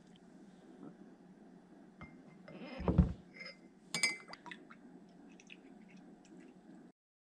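A dull thump about three seconds in, then a metal spoon clinks sharply against a glass mug and taps lightly a few more times as it stirs tea. The sound cuts off suddenly near the end.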